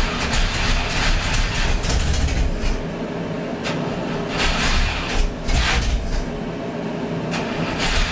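1961 Buick 401 Nailhead V8 running after months of sitting, a steady engine note with irregular surges of hissy noise every second or so.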